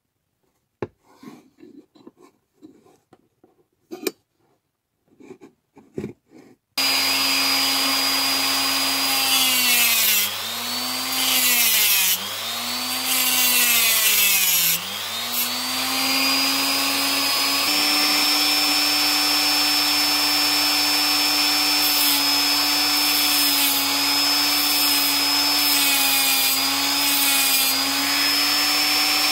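Faint clicks and taps of handling metal parts at the vise, then a rotary tool with a small cut-off disc starts suddenly about seven seconds in. Its high motor whine dips in pitch three times as the disc bites into the clamped metal bar, then runs steadily.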